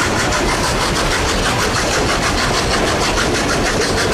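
Narrow-gauge steam locomotive working its train, the exhaust beating in a steady, even rhythm of about six or seven chuffs a second over a constant hiss.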